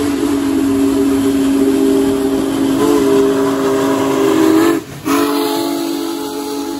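Union Pacific Big Boy 4014, a 4-8-8-4 articulated steam locomotive, blowing its chime whistle as it passes close by: a long held chord of several tones that breaks off for a moment about five seconds in, then sounds again, over the steady hiss and running noise of the locomotive.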